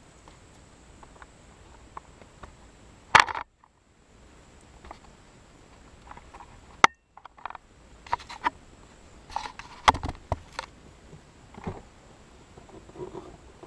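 Hands working plastic parts during a car cabin air filter change: scattered clicks, taps and rustles, with three sharp knocks, about three, seven and ten seconds in.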